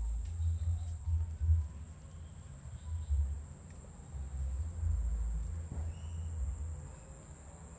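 Crickets or similar insects chirring in a steady high-pitched drone, over an uneven low rumble that swells and fades several times.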